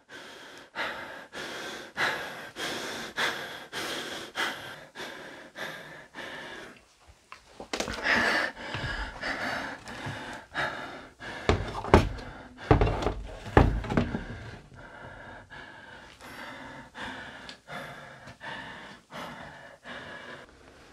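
Quick, regular breathing close to the microphone, about two breaths a second, with a few louder handling thumps and knocks from about eight to fourteen seconds in.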